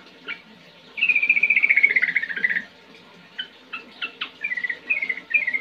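Yellow-vented bulbul singing. After a short chirp, a fast run of notes starts about a second in and falls in pitch for about a second and a half. More single chirps follow, then near the end a second run of quick notes in short groups.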